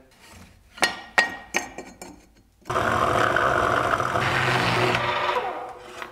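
A few sharp metallic clinks as the parts of a cast-iron machine vise are handled. Then a metal-cutting band saw runs and cuts through a metal bar, steady for about three seconds before it fades away near the end.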